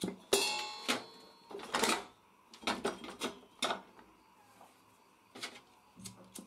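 Irregular sharp clicks and knocks of steel pieces being handled and set down on a sheet-metal plate, the first with a brief metallic ring.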